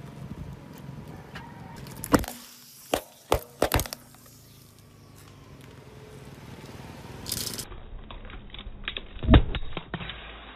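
Disposable plastic lighters cracking and snapping as a car tyre rolls over them: a string of sharp cracks about two seconds in, then another cluster near the end, the loudest of them there.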